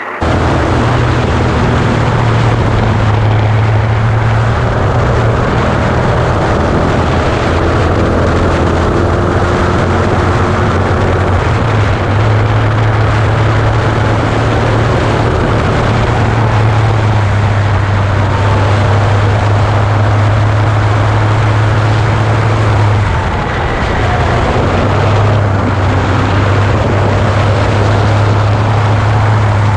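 Ford Ranger desert race truck's V8 engine running hard at a steady pace, a loud drone with a rushing noise over it; the engine note drops briefly about two-thirds of the way through.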